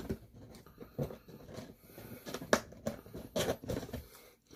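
A person chewing crispy Korean fried chicken, with irregular crunches and mouth clicks.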